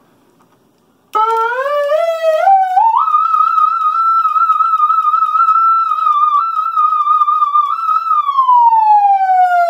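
Electronic siren from the fire-truck bed's horn speaker, starting about a second in: it winds up in steps to a high, held wail that wavers slightly, then winds slowly down near the end.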